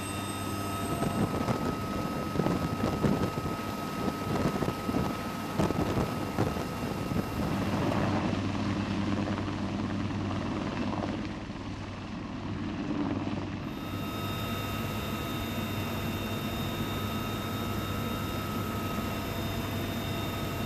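UH-1Y Venom helicopter running: a steady turbine whine and rotor noise heard inside the cockpit. For a few seconds midway it gives way to the helicopter heard from outside as it hovers just off the ground.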